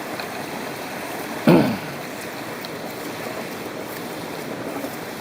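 Mountain stream water rushing steadily. About a second and a half in, a short voice sound falling in pitch cuts across it.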